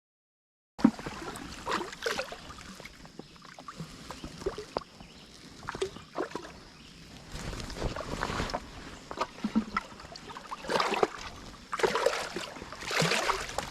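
Creek water splashing and sloshing in irregular bursts every second or two.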